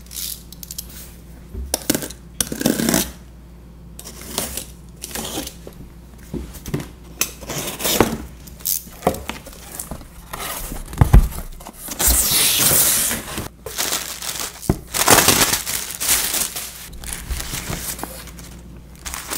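A cardboard parcel being opened by hand: packing tape ripped off, cardboard flaps handled, with a knock about eleven seconds in and two longer loud tearing stretches after it. Near the end, bubble wrap and crumpled packing paper rustle.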